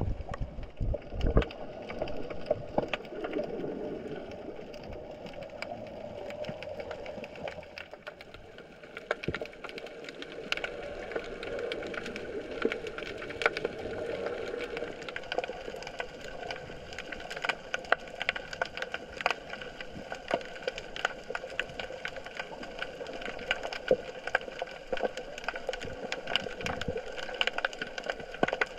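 Underwater sound picked up by a GoPro lowered beneath a fishing pier: a dense, irregular crackle of short clicks over a steady hum.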